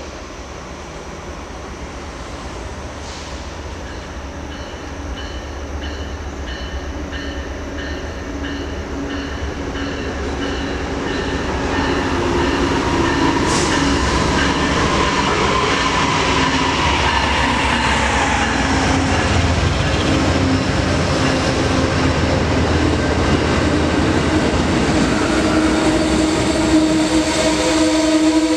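Shoreline East commuter train approaching and drawing alongside the platform, its diesel locomotive and coaches growing steadily louder over the first dozen seconds and then holding. A high ringing pulses about twice a second early on.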